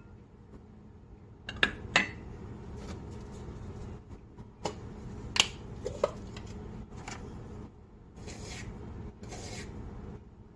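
Kitchen handling sounds of ingredients going into a glass mixing bowl: a string of sharp clinks and taps of glass and utensils against the bowl, with an egg in hand about six seconds in. Near the end come two short scraping rustles as a baking powder can is opened.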